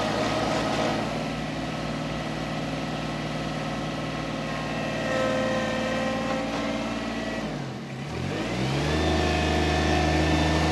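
John Deere 2320 compact tractor's three-cylinder diesel engine running while its front loader is worked. About three-quarters of the way through, the engine note dips and then climbs back, running louder and steadier near the end.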